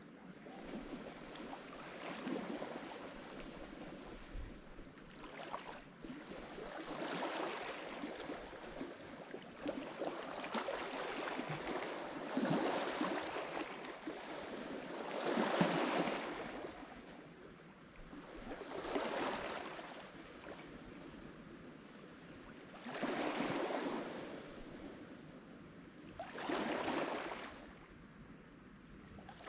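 Lake Michigan waves breaking on the shore: each wave a rushing wash that swells and falls away, one every three to four seconds, the biggest about halfway through.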